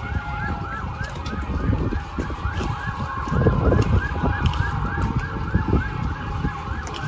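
Distant emergency vehicle siren in a fast yelp, rising and falling about three times a second, with a second steadier siren tone slowly falling beneath it. Wind buffets the microphone in gusts, strongest about halfway through.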